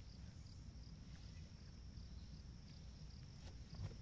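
Faint steady high-pitched insect trill with a pulsing chirp, over a low rumble, with a soft knock near the end.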